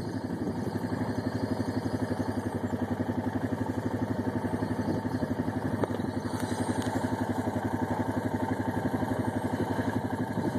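An engine idling close by, steady and even, with a regular pulsing beat of about four a second.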